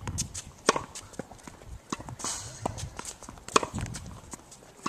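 Tennis racket strikes on the ball during a baseline rally, two loud hits about three seconds apart, with lighter knocks of the ball bouncing on the hard court and the return hits in between.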